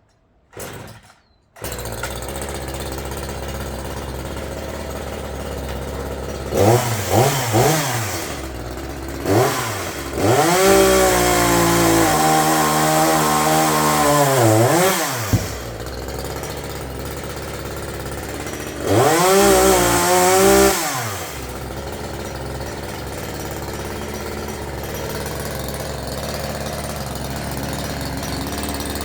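Gas chainsaw starting about a second and a half in, then idling. It is revved in a few quick blips, held at full throttle for about five seconds with its pitch sagging, and revved once more before settling back to idle.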